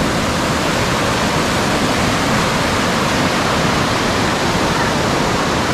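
Anguthi falls, water pouring down in a loud, steady rush of white noise.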